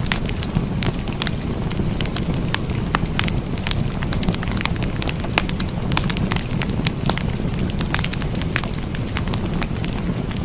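Wood fire burning, with frequent irregular sharp crackles and pops over a steady low rumble.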